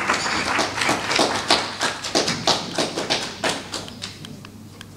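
Audience applauding at the end of a lecture, the clapping dying away about four seconds in.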